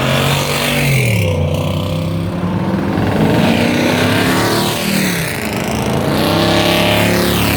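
Loud car engines revving as the cars drive past, engine pitch rising and falling several times.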